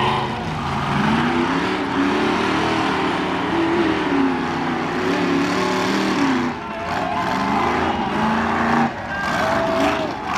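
Ultra4 4400-class race car's engine revving in repeated bursts, its pitch rising and falling again and again as it works the car up over rocks.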